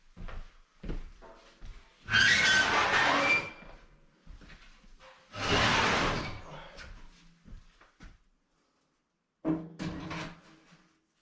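Sheet-metal stovepipe sections scraping against each other twice, each scrape lasting about a second and a half, then a shorter metallic clank with a ringing tone near the end as the pipe is worked into place on the wood stove.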